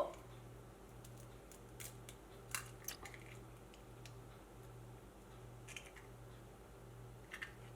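Faint, scattered clicks and light taps of eggshell against a bowl as an egg is separated by hand, over a low steady hum.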